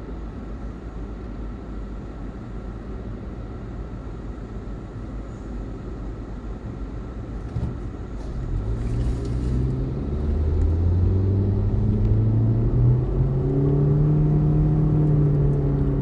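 Car driving on the road: a steady low road rumble, then from about halfway through the engine note rises and grows louder as the car accelerates, levelling off near the end.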